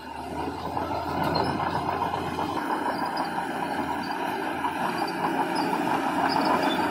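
Heavy diesel construction machinery working: a big engine running hard under load, swelling over about the first second and then holding steady.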